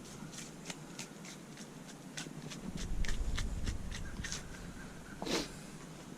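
Knife cutting the tenderloin out of a hanging deer carcass: a run of short, irregular snicks and scrapes, two to three a second, with a louder stroke about five seconds in.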